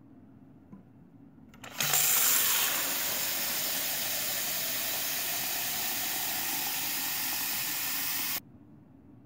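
Tap water pouring from a faucet into a plastic measuring jug. It starts about two seconds in, is loudest at first, then runs steadily, and cuts off suddenly near the end when the tap is shut.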